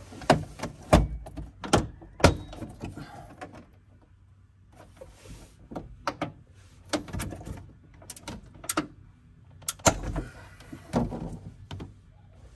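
Plastic interior trim panel in a Shelby GT350R's rear seat area being pulled and worked loose by hand, giving a run of sharp, irregular clicks and knocks of plastic and its retaining clips, with a pause of about a second and a half partway through.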